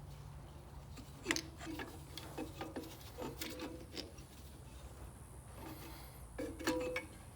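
Small clicks and taps of parts being handled and fitted onto a plastic lawn mower carburettor, the sharpest click about a second in and another cluster near the end, over a low steady hum.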